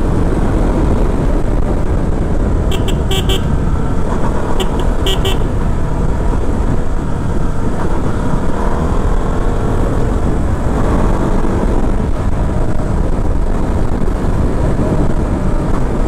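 KTM 200 Duke's single-cylinder engine running at riding speed under steady wind rush on the microphone. A horn gives two clusters of short toots, about three and five seconds in.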